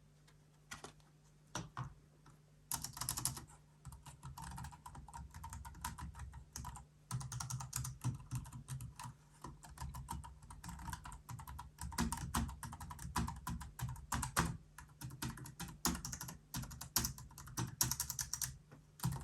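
Typing on the Trust Nado wireless Bluetooth keyboard: a few single key presses, then from about three seconds in a run of quick, irregular key clicks.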